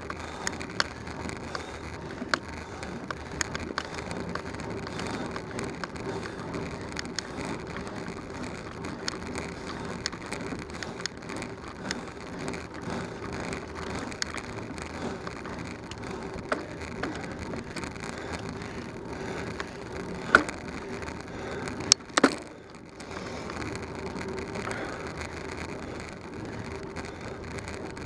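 Bicycle rolling along an asphalt road: a steady rush of tyre and wind noise with a faint hum and many small rattling clicks. There are a few louder sharp knocks about twenty seconds in.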